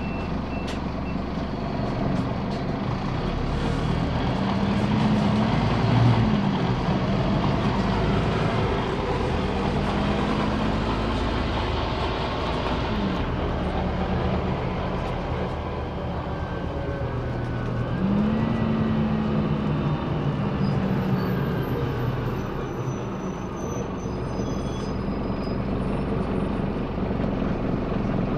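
Scania CN270UB city bus heard from inside the passenger cabin while under way: its 270 hp Scania DC9 diesel engine pulls through a ZF 6HP592C six-speed automatic gearbox. The engine note climbs and drops a few times as the gearbox shifts, over steady running noise.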